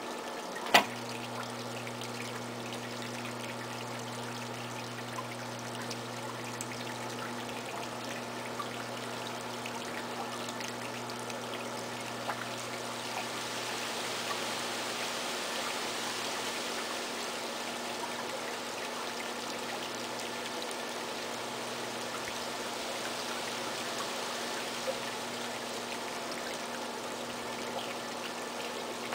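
Wet clay swishing and rubbing under the potter's hands as a tall pot turns on an electric potter's wheel, over the wheel's steady low motor hum. There is a sharp click about a second in, just before the hum deepens, and the swishing grows louder for a few seconds in the middle.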